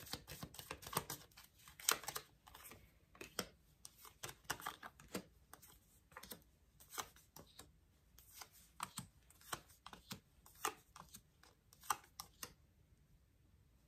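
Tarot cards being dealt one by one onto a spread on a glass-topped table: a quick, uneven run of light card slaps and clicks that stops shortly before the end.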